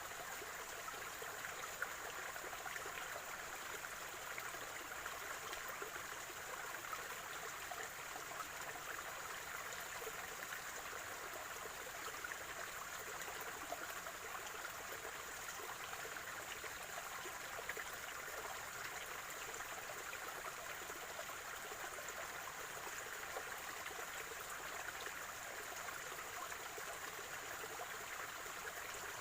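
Spring-fed stream water flowing and gurgling steadily over stones, an even trickling rush. A faint steady high-pitched tone sits above it throughout.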